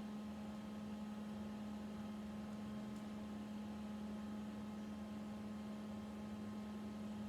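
Steady electrical hum with a few fainter higher tones, and one faint click about three seconds in.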